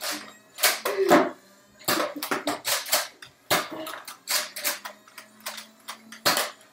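An irregular string of sharp clicks and knocks, many in a few seconds, a couple of them louder, about a second in and near the end, over a faint steady hum.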